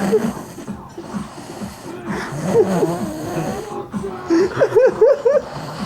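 Someone snoring, the breaths wheezy, turning into wavering pitched sounds in the second half.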